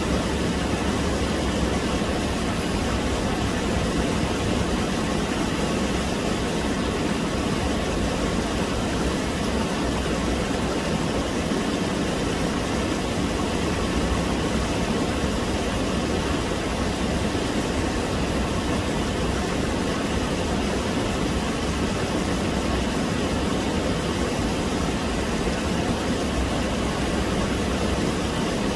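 Shallow stream water rushing and splashing over rocks in small rapids, a steady loud rush that does not change.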